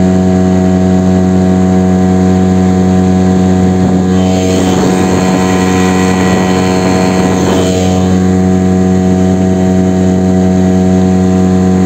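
Small boat outboard motor running at a steady speed, with its propeller lowered back into the water. A rush of churning water joins it for a few seconds in the middle.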